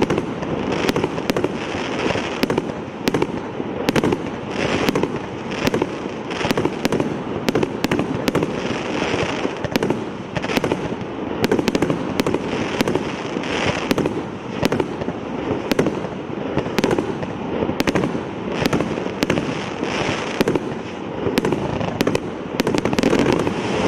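100-shot firework battery (cake) firing continuously: sharp bursts, about two a second, over a constant noisy wash.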